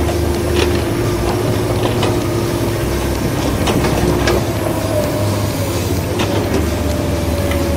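Toy radio-controlled excavator's electric motors and gearboxes whining steadily as it digs soil, with a second, higher whine that rises slightly in the second half and a few scattered sharp clicks.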